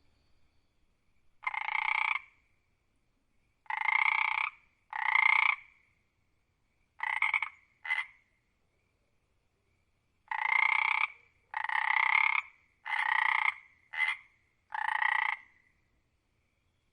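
A frog croaking: about ten separate croaks, each under a second long, each with a slight upward bend. They come in loose groups with pauses between, two of them shorter than the rest.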